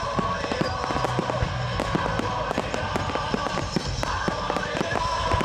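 Fireworks display: a dense, continuous stream of bangs and crackles from bursting shells and ground-level mines and fountains. Music runs underneath, set to the display.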